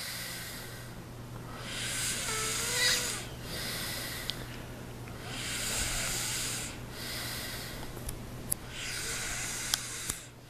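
A man passed out asleep, snoring: three long, noisy breaths about three and a half seconds apart, the first with a short whistling tone near its end.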